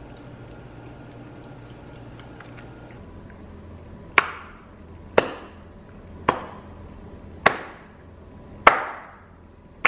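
A slow clap: single hand claps about a second apart, starting about four seconds in, five of them with a sixth at the very end.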